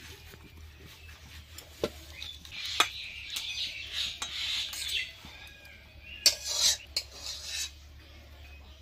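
A spatula scraping and clinking against a stainless steel bowl and wok as cooked chicken curry is scooped out. A few sharp clinks, with a cluster of knocks about two-thirds of the way through.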